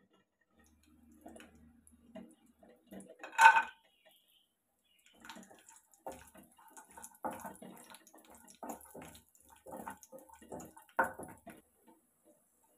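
A handful of cashews clattering into a nonstick kadai of hot ghee, about three and a half seconds in. A wooden spatula then stirs and scrapes them around the pan in short strokes about once a second, over a faint sizzle of the frying ghee.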